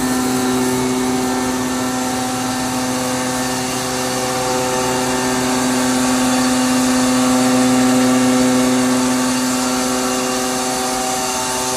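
315 kW two-stage screw air compressor with a permanent magnet motor, running steadily: a strong low hum with several higher steady tones above it and a broad hiss. The loudness swells a little about two-thirds of the way through.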